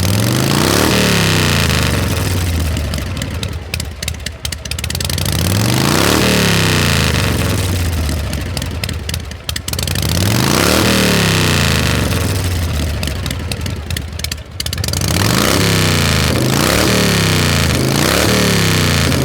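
Combustion engine revving through its exhaust: three long climbs in pitch, each dropping back into a quieter lull, then a quick run of short throttle blips, a little under one a second, near the end.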